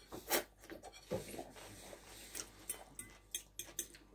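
Close-up eating sounds: a noodle slurped from a bowl near the start, then chewing with many small wet mouth clicks and smacks.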